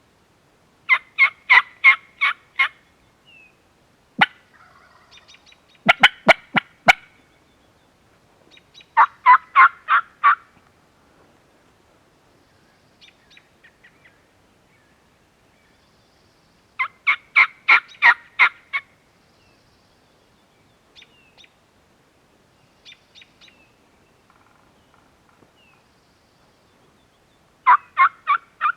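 Turkey yelping: five loud series of evenly spaced yelps, each about two seconds long at roughly four notes a second, with a few sharp clicks near the second series. Fainter, shorter runs of calls come in between.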